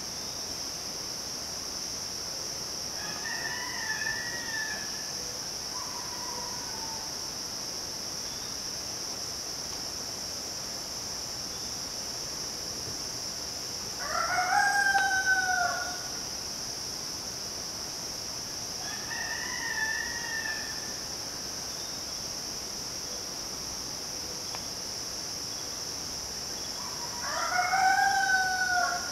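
Roosters crowing four times, the two louder crows about halfway through and near the end, the other two fainter. Underneath runs the steady high-pitched drone of midsummer insects.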